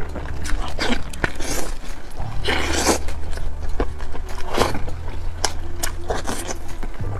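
A person eating glazed roast chicken leg close to the microphone: bites, chewing and wet mouth clicks and smacks, coming irregularly.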